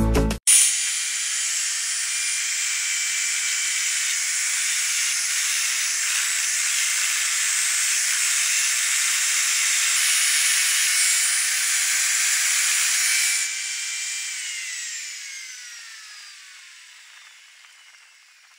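A red electric drill clamped in a wooden jig as a makeshift lathe spins a wooden disc while an angle grinder with a sanding pad sands its face and edge. The motors whine steadily under a hiss of sanding. About two-thirds through the tools are switched off, and the whine falls in pitch and fades as they coast to a stop.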